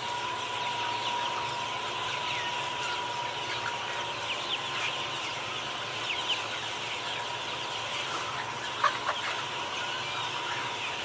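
A crowded flock of white chickens calling, many short clucks and peeps overlapping without a break, over a steady high hum.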